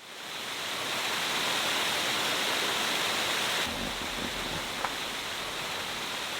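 Steady rushing of water, fading in at the start and changing character a little past halfway, with one faint click shortly after.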